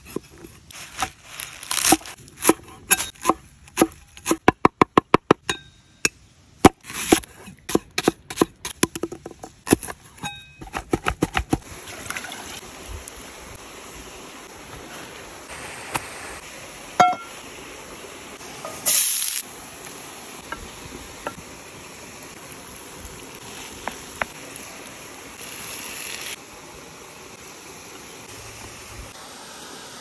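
Meat cleaver chopping through lamb ribs on a wooden stump block: a series of sharp chops, with a quick even run of them about four seconds in and another near ten seconds. From about twelve seconds in, the steady rush of a small woodland waterfall and stream takes over, with a few light knocks and rustles.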